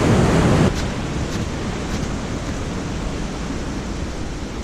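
Waterfall rushing: a steady, even rush of water, a little louder for the first moment.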